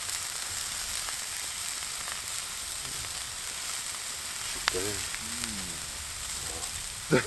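Sliced onion and red pepper frying in oil in a square steel pan over a campfire, the vegetable base of a shakshuka, with a steady sizzle. A single sharp click sounds about five seconds in.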